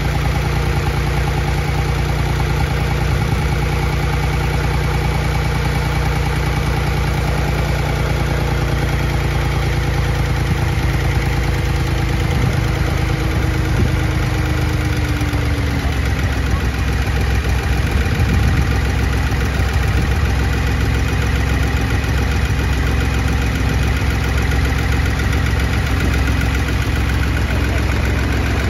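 Continental IO-520-BB air-cooled six-cylinder engine of a 1949 Ryan Navion running steadily at low speed on its first run after installation, its propeller turning. The engine speed eases down slightly about halfway through, then holds steady.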